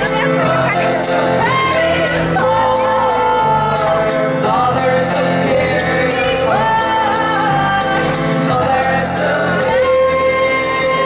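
Live band music: women singing loudly over mandolin and contrabass balalaika with a steady percussion beat, a long held vocal note near the end.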